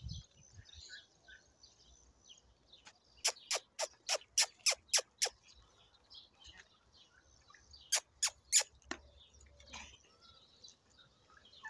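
A person calling goats with sharp mouth clicks: a quick run of about eight, roughly four a second, then three more a few seconds later.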